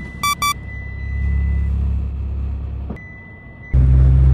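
Low, steady vehicle rumble, with two short electronic beeps about half a second in.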